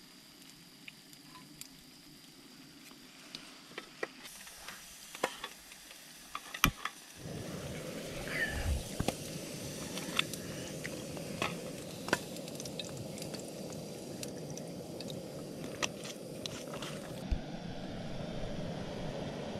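Scattered light clinks of chopsticks and a metal mess tin. About seven seconds in a sharp click is followed by the steady rushing hiss of a cassette-gas camp stove burner, which runs on to the end.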